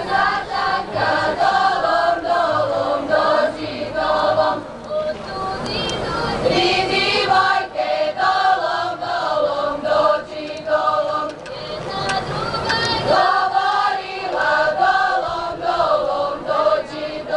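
A group of women's voices singing a Slavonian folk song together in loud chorus phrases, with short breaks between the phrases, as the kolo circle dance is sung.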